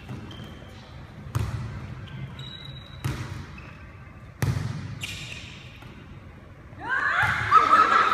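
Sharp, echoing smacks of a volleyball during a rally, several of them a second or two apart. Near the end, players' voices shouting take over.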